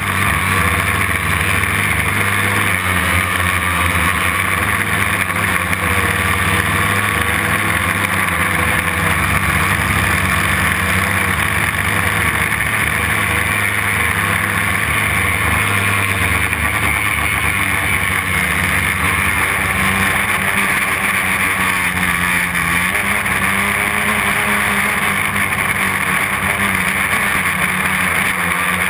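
Homemade quadcopter's brushless motors and propellers whirring in flight, recorded close up from its own frame: a loud, steady drone whose pitch wavers a little as the throttle changes.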